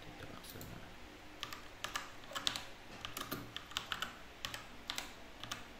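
Typing on a keyboard: an irregular run of light key clicks, a few at first and then several a second.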